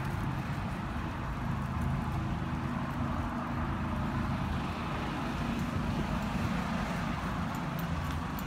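Horse loping on soft dirt arena footing, its hoofbeats faint while it is at the far side and a little clearer near the end as it comes back, under a steady low rumble.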